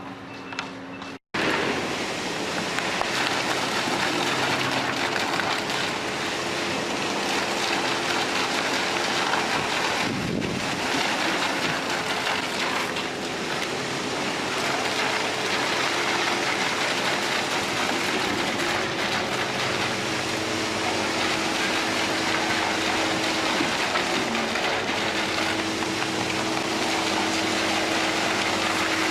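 A reversing alarm beeps briefly, then after a cut heavy road-construction machinery runs: a steady, dense noise with a few held low droning tones.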